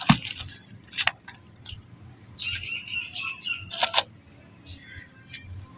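Balls of soft black sand crumbling: a few sharp crunches, with a longer grainy crackle in the middle.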